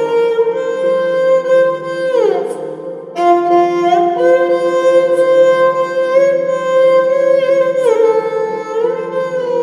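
Background music: a slow melody of long held notes that slide down in pitch twice, over a steady low drone.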